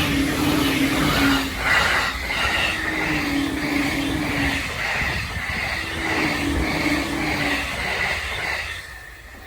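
Joban Line train passing at a railway level crossing while the crossing's warning bell rings in a steady repeated beat, with some knocks from the wheels over the track. The sound drops away about nine seconds in.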